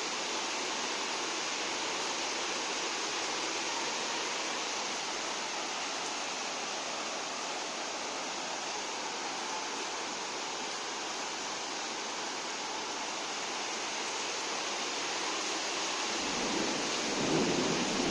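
Steady rain, an even hiss without let-up. About sixteen seconds in, a low rumble of thunder rises under it and grows louder.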